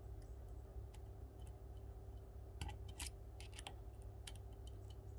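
Faint, scattered metallic clicks and ticks of a lock pick probing and setting the pins of an Assa Flexcore euro cylinder held under tension, with a few sharper clicks near the middle. A steady faint hum underneath.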